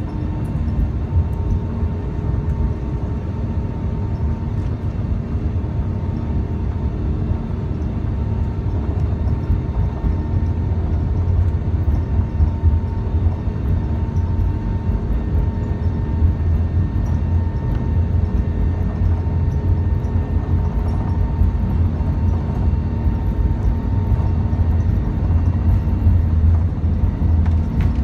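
Airbus A380 cabin noise heard from a window seat behind the wing: a steady low rumble from the Rolls-Royce Trent 900 turbofans and the aircraft rolling on the runway, with a faint steady engine whine. It grows a little louder about halfway through.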